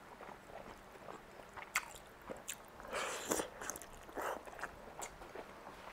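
Soft, wet chewing and biting of slippery rice noodle rolls, with scattered small clicks and a louder mouth sound about three seconds in as another fold of noodle goes into the mouth.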